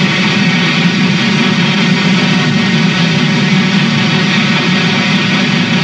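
Steam locomotive working hard: a steady, loud roar with no separate exhaust beats.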